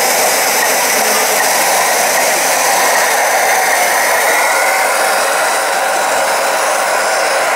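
RC model trucks driving: a steady whirring hiss from their small electric drive motors and gearboxes, with a faint whine that rises and falls in the middle.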